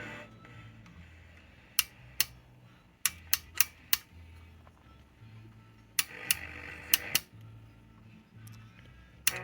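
Music from the Arvin 30R58 radio's speaker: a low bass line in short notes, cut through by sharp clicks that come in small groups of two to four.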